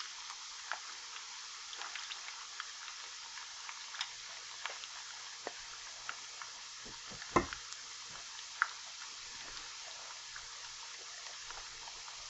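Chopped onions and tomato paste frying in oil in a pan, a steady sizzle with scattered small crackles and pops. A spatula scrapes paste from a metal can, with two sharper knocks a little past the middle.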